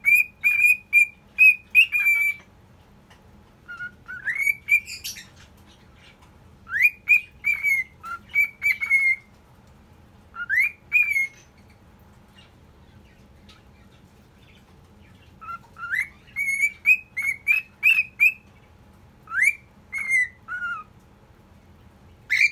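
Male cockatiel whistling, a series of short, rising whistle notes strung into phrases of a few seconds, with pauses of a second or more between phrases.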